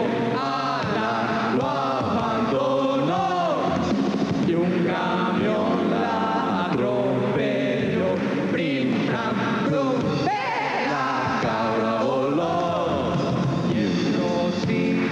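A live band playing an Arab-themed song: voices chanting in long, bending, wavering lines over the band's steady backing.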